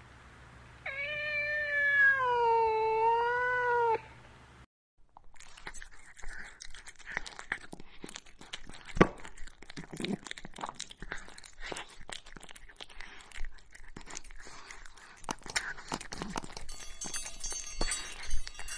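A cat giving one long, drawn-out meow that wavers up and down in pitch, starting about a second in and lasting about three seconds. After a short silence comes a long stretch of soft, irregular crackling and clicking, with high ringing tones near the end.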